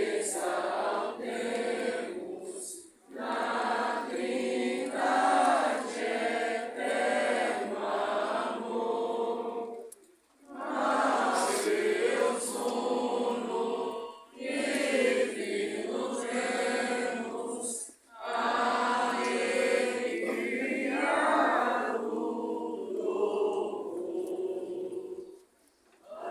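Choir singing a hymn in several sung phrases, each separated by a short pause.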